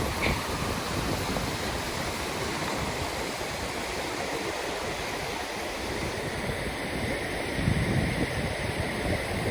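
River water rushing steadily over a shallow bed, with a brief low rumble about eight seconds in.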